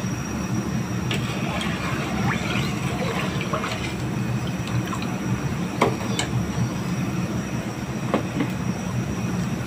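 Metal ladle stirring sugar water in a large aluminium pot, with a few light clicks and scrapes of the ladle against the pot, over a steady low rumble.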